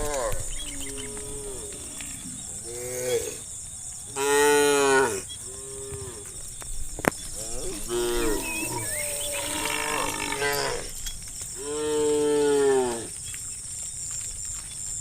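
Cows mooing repeatedly: about half a dozen separate calls with pauses between them, the loudest about four seconds in and again near twelve seconds.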